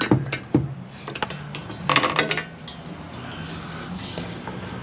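Copper pipe being handled and offered into position: a few sharp clinks and knocks in the first second, then a short metallic clatter about two seconds in.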